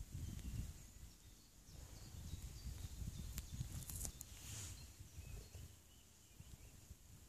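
Faint lakeside outdoor ambience: a low, uneven rumble with faint scattered bird chirps and a few soft clicks midway.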